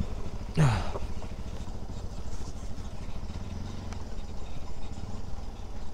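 Bajaj Pulsar NS200's single-cylinder engine running steadily while riding, its low rumble swelling slightly a little past the middle. A brief falling sound comes about half a second in.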